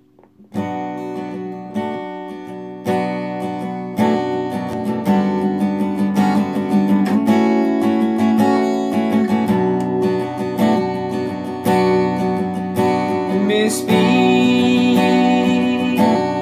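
Acoustic guitar with a capo, strummed and picked as a song intro. It starts about half a second in and gets fuller and louder about four seconds in.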